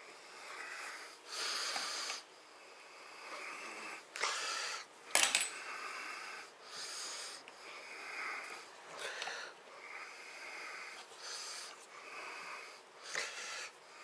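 A man's wheezy breathing close to the microphone, raspy breaths about once a second with a faint whistle in them. A single sharp metal clink about five seconds in.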